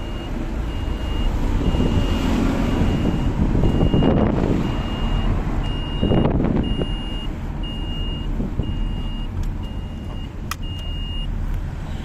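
A car's warning chime beeping steadily about twice a second over the low rumble of the running car, stopping near the end just after a sharp click. Rustling and handling noise come and go underneath.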